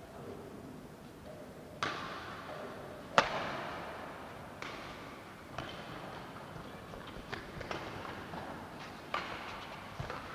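Badminton rally: sharp racket-on-shuttlecock hits at irregular intervals, echoing in a large hall. The loudest hit comes about three seconds in, followed by a run of lighter, quicker hits.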